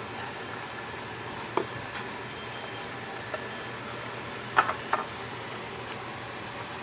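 A pot of stew broth simmering with a steady hiss, with a few light clicks and knocks as turkey berries are added; the two loudest knocks come close together near the five-second mark.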